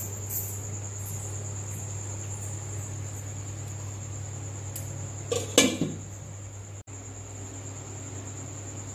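A steady high-pitched whine over a low mains-like hum, with a brief clatter about five and a half seconds in.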